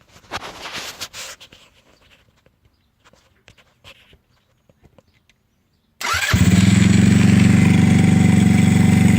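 A few faint handling clicks, then about six seconds in the electric starter of a GY6 150cc single-cylinder four-stroke scooter engine cranks briefly and the engine catches at once and settles into a steady idle. The quick catch shows the starting system working again after the bad starter solenoid was replaced.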